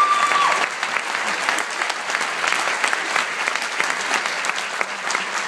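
Audience applauding, a dense steady patter of many hands clapping. Near the start a single high whistle rises, holds briefly and stops.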